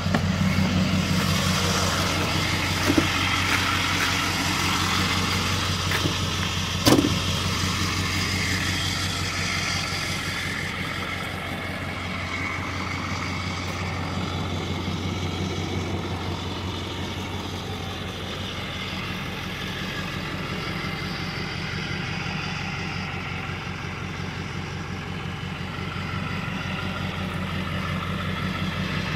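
2002 Ford F-350 Super Duty's 7.3-litre Powerstroke turbo-diesel V8 idling steadily. A light knock comes about three seconds in and a sharper, louder one about seven seconds in.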